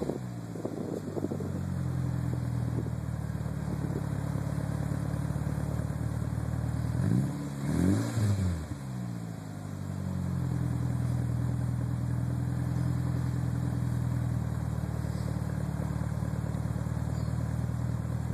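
Turbocharged engine idling steadily, blipped twice in quick succession about seven seconds in, the revs rising and falling back to idle each time. The owner suspects a bad turbo.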